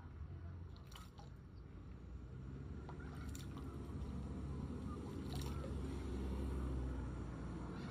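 Australian magpie splashing in a backyard bird bath, a few short splashes about one, three and five seconds in, over a low rumble that swells to its loudest about six seconds in and then eases.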